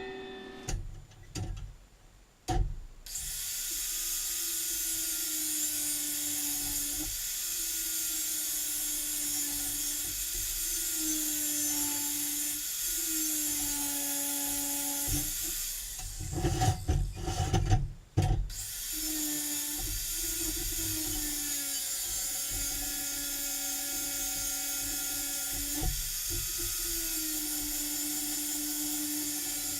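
Angle grinder grinding down welds on a steel frame: a steady high whine with hiss. Its note dips and recovers every couple of seconds. There are a few knocks before it starts, and a short break with clanks about halfway through.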